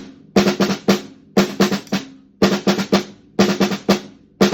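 A drum struck in quick groups of four strokes, about one group a second, each group ringing out briefly before the next: a repeated drumming warm-up pattern. Four full groups sound, and a fifth starts near the end.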